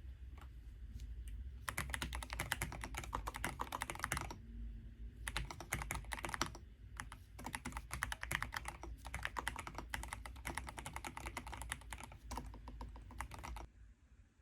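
Typing on a computer keyboard: quick runs of key clicks in several bursts with short pauses between them, stopping near the end.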